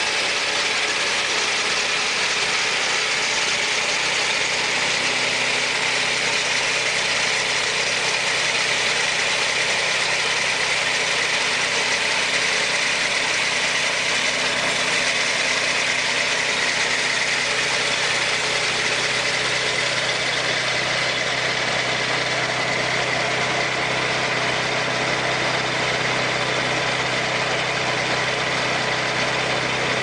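Turbo swing-blade sawmill running, its engine driving the circular saw blade at a steady, unchanging pitch.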